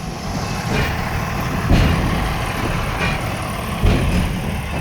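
Steam-hauled passenger train rolling along the track, heard as a steady low rumble with two heavier thumps, one a little under two seconds in and one near the end.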